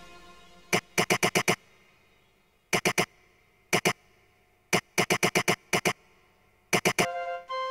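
Dungeon synth electronic music: a synth chord fades away, then short clusters of rapid, sharp electronic clicks sound with near silence between them. A steady synth tone comes in near the end.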